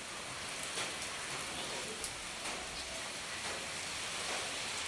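Steady rain falling, with a few single drops ticking a little louder than the rest.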